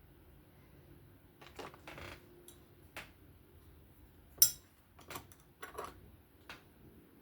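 Small metal clicks and clinks from handling folding-knife parts and tools at a workbench, with one sharp, loud click about four and a half seconds in.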